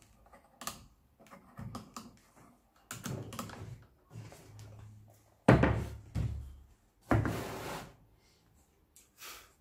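Wooden jig and fence being handled on a plywood table saw top: several wooden knocks and thuds, the loudest about five and a half seconds in, with short stretches of wood sliding and scraping across the table.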